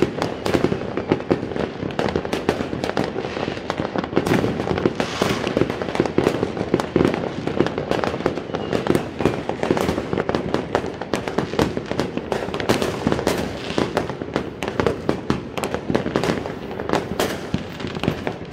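Many fireworks and firecrackers going off at once: a dense, continuous barrage of overlapping bangs and crackling pops with no break.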